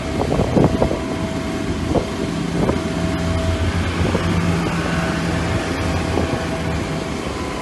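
Steady engine drone with a constant thin whine above it, and wind rumbling on the microphone. The low hum swells for a few seconds in the middle. A few knocks in the first second.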